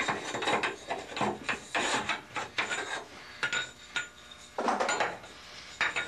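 Aircraft control linkage of steel tube and brackets being moved up and down by hand: a run of irregular metallic clicks, clinks and rubbing scrapes, with a faint metallic ring now and then.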